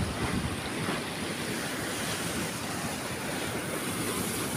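Steady rushing of fast-flowing irrigation canal water, mixed with wind buffeting the microphone.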